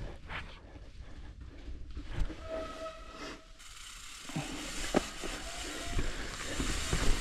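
Mountain bike rolling down a slick, wet trail: steady tyre and wind hiss, with knocks and rattles from the bike over the rough ground. A disc brake squeals in one steady tone for about a second near the middle and briefly again later, the squeal that wet brakes give under braking.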